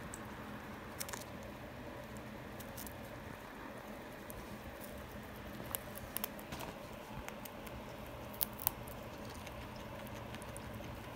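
Guinea pig eating a dry forage mix: crisp, irregular crunches and small clicks as it bites and chews the dry flakes, with a few louder crunches about halfway through and again later.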